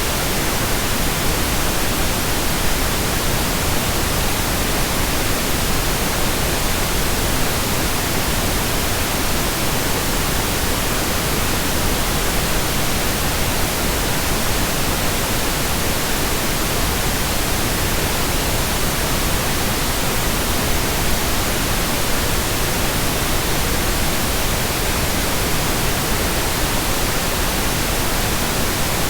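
Steady, unchanging pink noise: an even hiss spread across all pitches.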